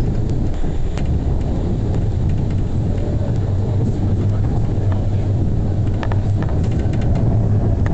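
Tram running on its rails, heard from inside behind the driver's cab: a steady low rumble from the running gear, with a few short clicks and rattles about five to seven seconds in.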